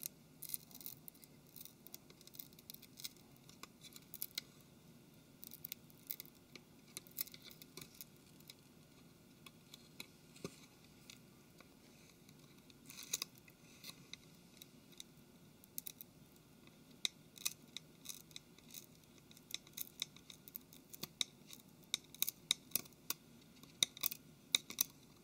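Thin metal pry tool scraping and clicking against a smartphone frame as a glued flex cable is lifted away: faint scratches and short sharp ticks, coming more often in the last third.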